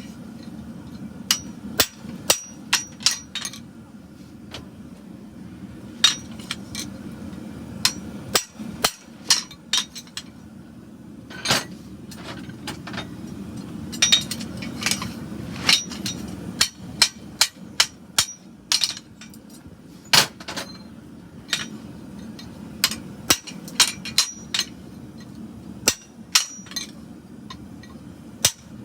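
Hand hammer striking a pritchel through the nail holes of a hot steel horseshoe on an anvil, punching the holes through. The strikes come in irregular clusters of sharp, ringing metallic blows over a steady low hum.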